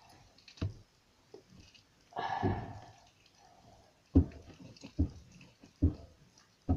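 Glue-stick slime being squeezed and kneaded in the hands: a handful of short, wet squelching pops, about five in all, with a longer squishing sound about two seconds in. The slime is stiff and, in the maker's view, overactivated.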